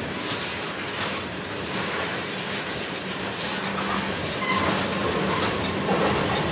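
Freight train cars, mostly tank cars, rolling past close by: steel wheels clattering over the rail joints with a steady rumble.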